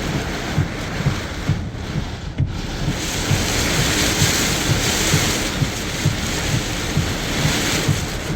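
Strong storm wind and rain rushing and buffeting the microphone, growing louder about three seconds in. Under it runs a steady low thumping, about two to three beats a second.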